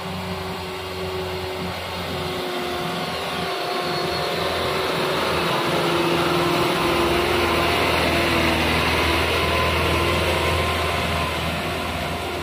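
Mitsubishi Fuso Canter light truck's diesel engine pulling up a slippery, muddy slope at steady revs. It grows louder as the truck comes close past the middle, then eases as the truck moves away.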